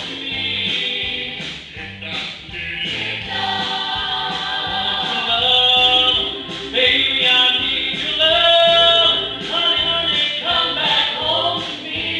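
Music: a vocal group singing close harmony over a band with a steady beat, in doo-wop style.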